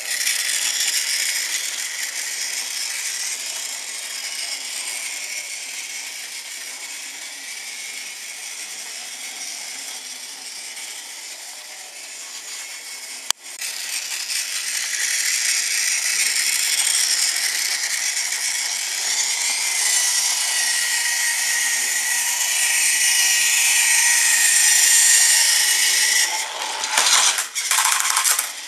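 Battery-powered TOMY plastic toy Thomas engine running on plastic track: a steady high whir of its small electric motor and gears. The whir is louder from about halfway through, with a few short knocks near the end.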